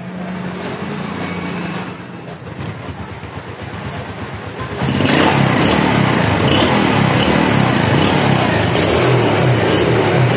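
Yamaha Vega ZR's single-cylinder four-stroke engine being kick-started: it catches about five seconds in and runs loud and steady. The kick-starter is gripping again instead of slipping.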